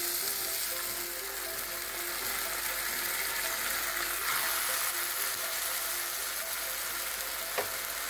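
Soaked sago pearls, still wet, sizzling steadily in hot ghee in a non-stick kadhai as they are poured in from a glass bowl.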